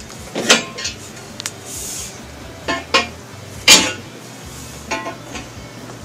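Heavy steel security door being unlocked and worked open: a handful of sharp metal clanks and rattles from its latch and bolts, loudest a little past halfway.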